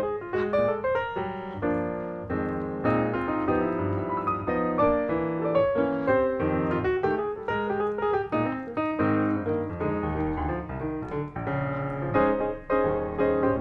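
Background piano music: a lively melody with chords, played steadily.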